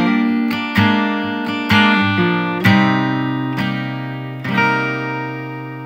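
Music: guitar chords strummed every half-second to a second, then a last chord about four and a half seconds in that rings on and slowly fades.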